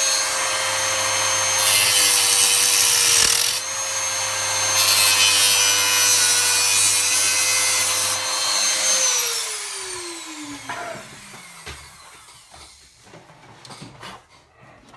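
Dremel rotary tool running at a steady high whine, with two stretches of harsh grinding as it cuts through the laptop's metal case. It is switched off about nine seconds in and its whine falls in pitch as it spins down.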